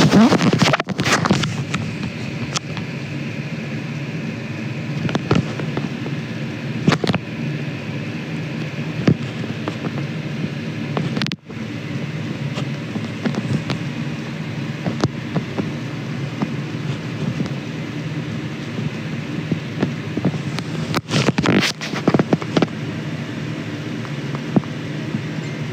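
Crackling and rustling of a phone's microphone being handled and rubbed close up, over a steady low hum. The crackling is loudest at the start and again about 21 seconds in.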